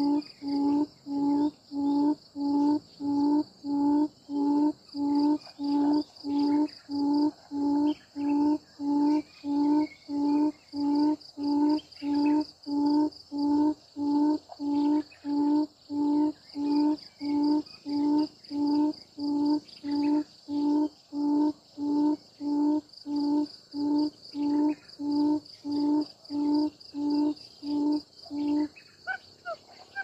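Quail giving a long, very even series of low hooting calls, about one and a half a second, which stops shortly before the end. Insects buzz steadily in the background.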